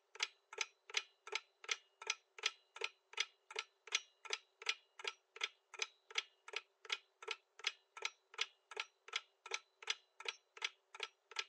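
Clock-ticking sound effect for a quiz countdown timer: short, evenly spaced ticks, roughly three a second.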